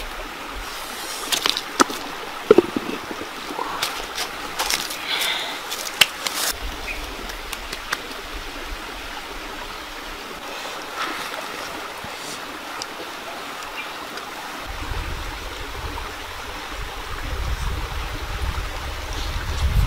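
Steady rushing of a shallow rocky stream, with scattered sharp clicks and knocks in the first several seconds; a low rumble sets in about three quarters of the way through.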